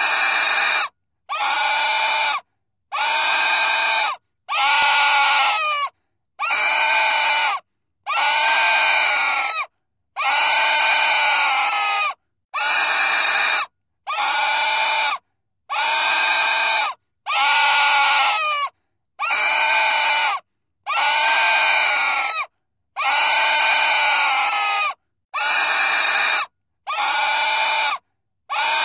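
A pig squealing: a string of about seventeen loud, high-pitched squeals, each a second or so long and arching up and down in pitch, separated by short silent gaps.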